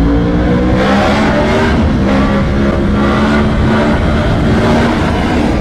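Yamaha R1M's crossplane inline-four running through a freshly fitted aftermarket exhaust under throttle: the engine note rises over the first second, then holds high and fairly steady. The rider feels the engine has some flat spots.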